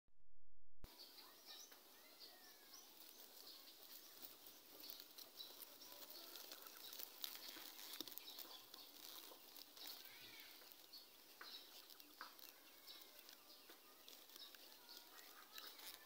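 Faint outdoor ambience with birds chirping: many short, high chirps and a few sliding whistled calls scattered throughout. A brief low rumble sits at the very start.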